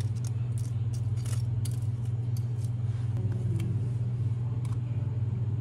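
A steady low hum, the loudest sound, with a few faint scrapes and clicks of a spatula spreading Nutella and whipped cream on a waffle.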